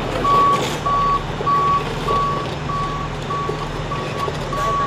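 Vehicle backup alarm beeping in an even rhythm, a single-pitch beep about every 0.6 seconds, over a steady low hum.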